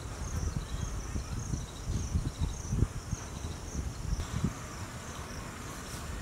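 Insects chirping: a regular series of short, high chirps, a few every second, fading out about halfway through. Underneath runs an uneven low rumble with a few soft thumps.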